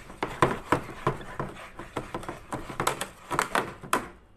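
Wire balloon whisk beating cake batter in a bowl, clicking against the bowl about three times a second, then stopping abruptly near the end.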